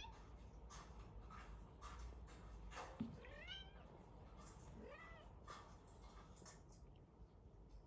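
Persian chinchilla kitten meowing twice, two short high calls a couple of seconds apart, with faint clicks in the background.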